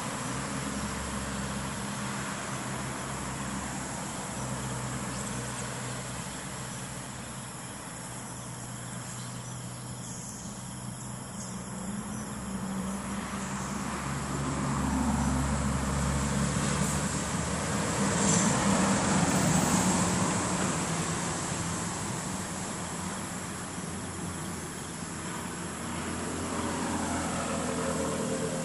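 Steady outdoor background noise: a low traffic-like rumble with a high, even insect drone, growing louder for a few seconds around the middle.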